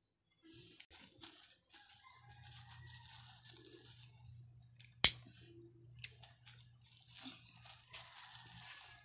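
Thin plastic sheet crinkling and crackling as it is crumpled and folded in the hands, with a sharp click about five seconds in from a lighter being struck and a smaller click a second later.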